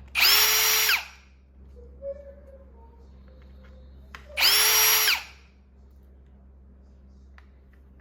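Cordless drill-driver with a small Torx bit backing out screws, in two short runs of about a second each: the motor whines up to speed, holds steady, then winds down. Faint clicks of handling come between the runs.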